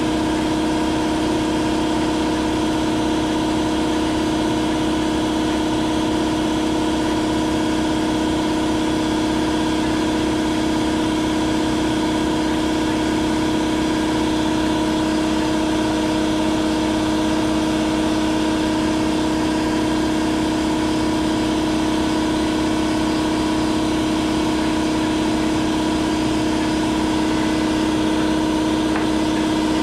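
Power drill running at a steady speed, its bit boring into a broken cobalt drill bit lodged in a grade 8 bolt. It makes a continuous hum with no change in pitch.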